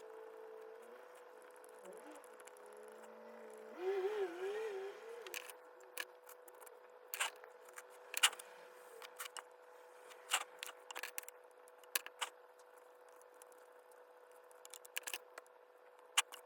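Scattered sharp clicks and taps of small hard objects being handled and set down on a work surface, over a steady hum. A brief wavering squeak comes about four seconds in.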